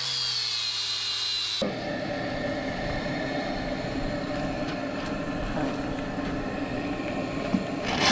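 Battery-powered power tool running. A steady whine that drifts a little in pitch changes abruptly, about one and a half seconds in, to a rougher, noisier running sound.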